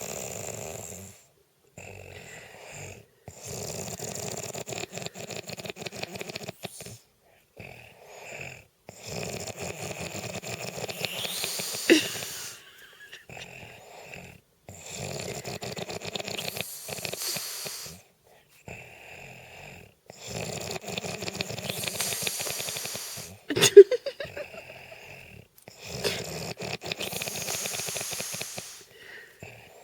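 A man snoring in his sleep: long fluttering snores about every six seconds, with quiet gaps between. Twice a snore ends in a sudden sharp sound, the louder of the two about two-thirds of the way through.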